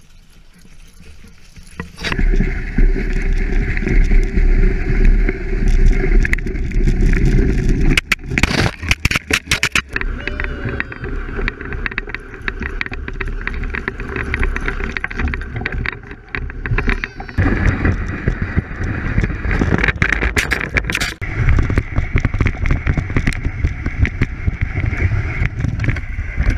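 A small sled sliding and scraping over snow, with a deep rumble, wind noise, and frequent knocks and rattles close to the camera riding on it. The noise changes abruptly several times.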